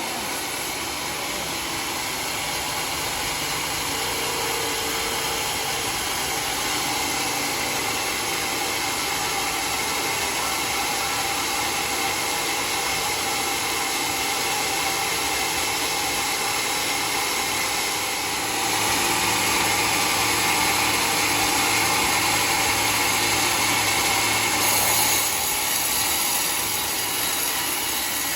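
Sawmill saw running steadily as it cuts a mahogany log, growing louder and harsher for several seconds near the end.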